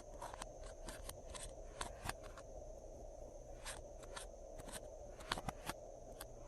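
Glossy slime being squished and worked by hand, making irregular small clicks and pops, a few a second, over a steady low background hum.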